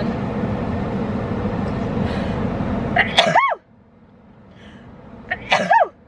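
A woman sneezes: a sharp, high sneeze about three seconds in and a second one near the end, over a steady background hiss that drops away after the first.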